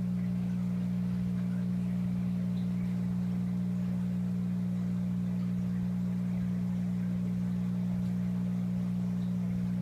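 Steady low electrical hum of aquarium equipment, unchanging in pitch and level.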